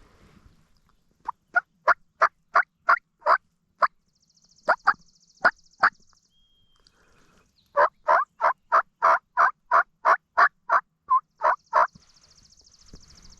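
Hen-turkey yelps from a hunter's turkey call, in three runs of evenly spaced notes, about three a second: a run of about eight, a short run of four, then a longer run of about thirteen.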